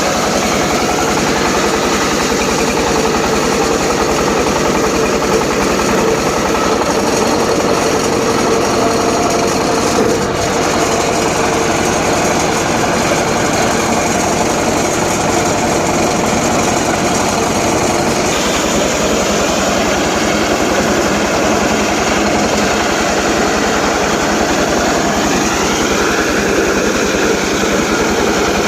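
Homemade circular saw running and ripping teak, a steady loud mechanical din with a rising whine near the end.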